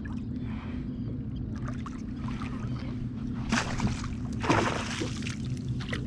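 Water splashing beside a kayak, loudest a few seconds in, as a hooked summer flounder (fluke) is brought alongside and netted. A steady low hum runs underneath.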